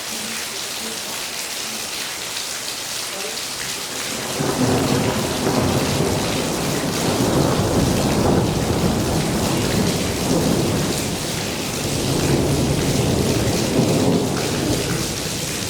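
Heavy rain pouring steadily. About four seconds in, a long low rumble of thunder rolls in and keeps going, swelling again near the end.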